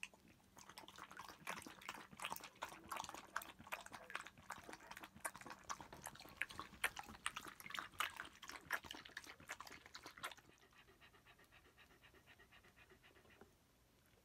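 Pembroke Welsh Corgi lapping chicken broth from a bowl: a fast run of wet clicking laps that stops about ten seconds in, followed by quieter, even panting at about three breaths a second.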